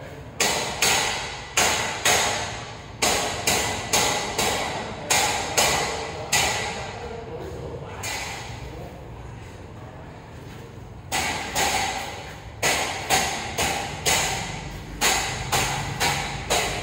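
Hammer blows struck about two a second, each with a short ringing decay: a run of about a dozen, a pause of a few seconds, then another run.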